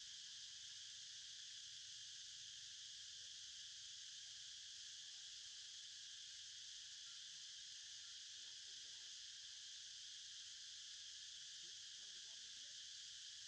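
Faint, steady insect chorus: an even, high buzz that holds without a break.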